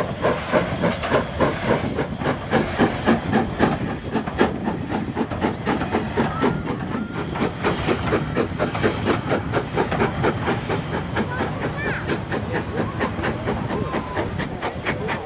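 Steam train running: hissing steam with a regular rhythm of short beats, about two a second at first and closer together later on.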